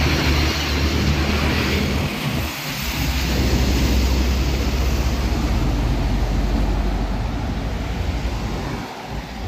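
Heavy diesel trucks driving past close by. A cargo truck's engine fades in the first two seconds. A tarp-covered tandem-axle dump truck's diesel engine then comes up loud with a deep rumble as it passes, dying away near the end.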